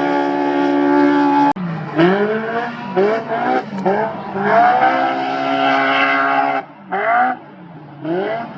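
Off-road race vehicle's engine held steady at high revs, breaking off suddenly about a second and a half in. A string of quick revs follows, each rising and falling, with a short lull near the end.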